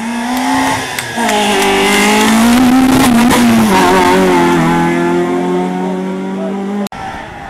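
Rally car engine revving hard under acceleration, its pitch climbing and dropping back several times as it shifts gears; it cuts off suddenly near the end.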